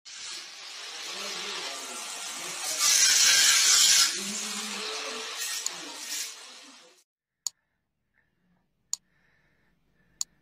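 Angle grinder cutting metal, loudest for about a second midway, with voices faintly behind it. It cuts off about seven seconds in, and three sharp mouse clicks follow about a second and a half apart.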